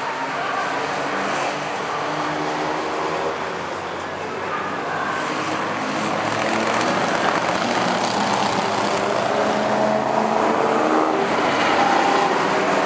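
Several car engines running together as a group of cars drives past on a race track. It is a steady, mixed engine drone that grows louder in the second half.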